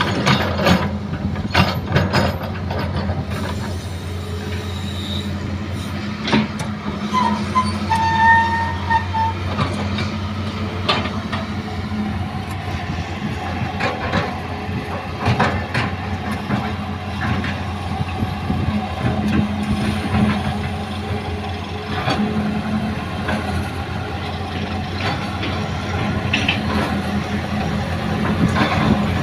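Hitachi hydraulic excavator's diesel engine running steadily under load while it loads earth into a steel dump-truck bed, with repeated knocks and clanks of soil and rocks dropping into the bed, most frequent in the first few seconds. A brief high squeal about eight seconds in.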